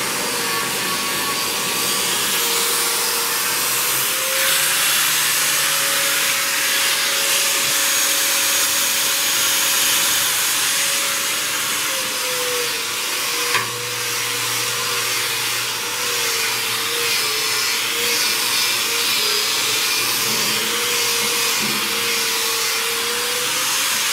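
Corded electric tool spinning a wire brush against the rusty steel inside a smoker's cooking chamber, knocking off surface rust. A steady motor whine wavers in pitch as the brush is pressed and moved, over the scratchy hiss of the wires on the metal, with one sharp knock about 13 seconds in.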